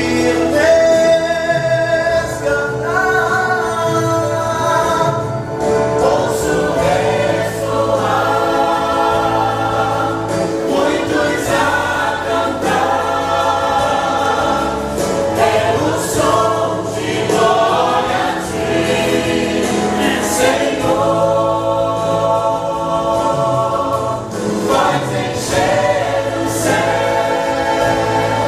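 Choir singing a gospel song over instrumental accompaniment with a steady bass line.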